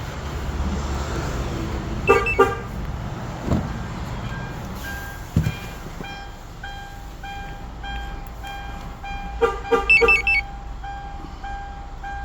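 Aftermarket two-way car alarm (Magic Car Gold 8) chirping twice, with a couple of dull clunks after. A repeating electronic beeping pattern follows, then four quick chirps near the end. The chirps are the alarm's confirmation of the automatic door unlocking and locking as the remote comes near and moves away.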